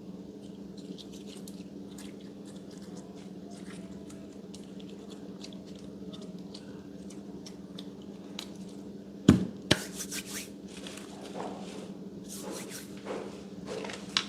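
Slime being handled and squeezed by hand, with many small sticky clicks and pops. Two loud sharp thumps come a little past nine seconds in, followed by wetter squelching. A steady low hum sits underneath.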